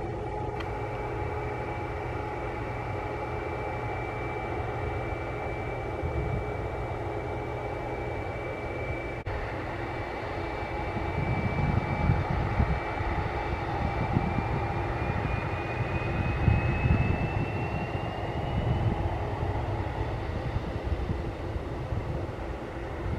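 Boeing 737 MAX's CFM LEAP-1B turbofan engines whining steadily at taxi power. About halfway through, the whine rises in pitch and a low rumble grows louder as the engines spool up.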